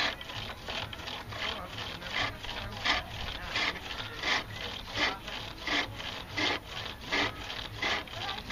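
A chisel cutting a green cherry billet on a foot-powered pole lathe. A rasping shaving cut comes on each treadle down-stroke, roughly three every two seconds, as the work spins back and forth.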